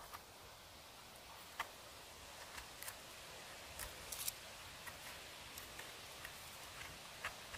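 A small serrated knife blade scraping soil off a mushroom stem: faint, irregular scrapes and sharp little ticks over a quiet hiss.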